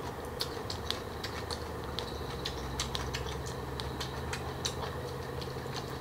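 Close-miked crunchy chewing of green papaya salad with pig ear: irregular crisp crunches, several a second, over a steady low background hum.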